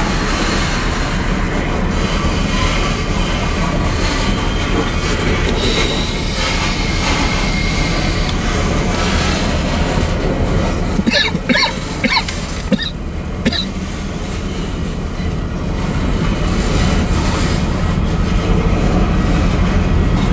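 Loaded grain train's covered hopper cars rolling past, a steady rumble and clatter of steel wheels on the rails. About halfway through come a handful of short, high-pitched metallic chirps.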